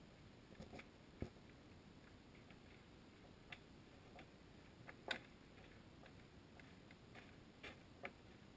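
Near silence underwater, heard through a camera's waterproof housing: a low hiss with a scattering of faint, irregular clicks and ticks, the sharpest about five seconds in.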